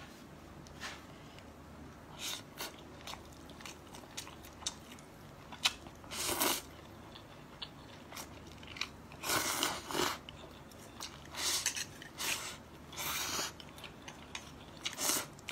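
Close-miked eating of steamed scallops with garlic glass noodles: chewing, wet mouth smacks and slurps of the noodles off the shell, coming irregularly, with a few louder slurps partway through.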